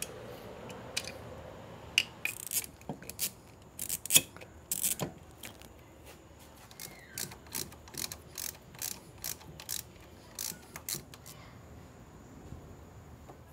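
Hand socket ratchet clicking as the bolts holding an upper engine steady are undone, among scattered metal clicks and clinks of parts. In the middle comes a run of evenly spaced ratchet clicks, about two or three a second.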